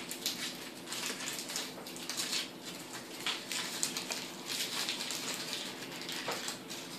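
Gold foil wrappers of Ferrero Rocher chocolates crinkling as they are unwrapped by hand, an irregular crackling rustle.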